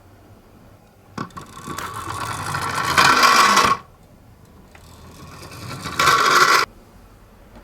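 A toy ambulance minicar's wheels rattling and scraping as it rolls down a slope, twice: each run grows louder as the car speeds up, then cuts off suddenly.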